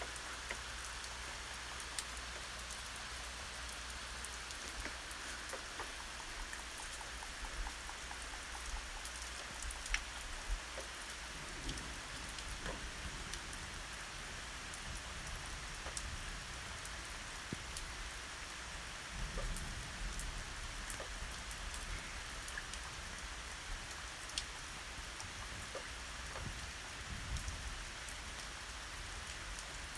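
Steady rain falling in a thunderstorm, with many separate drops ticking close by. A few brief low rumbles rise and fade at intervals.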